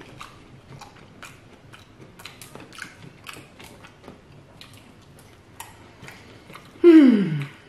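Close-up eating sounds: a run of small wet mouth clicks and soft crunches from chewing fried food. Near the end a loud, satisfied "mmm" slides down in pitch.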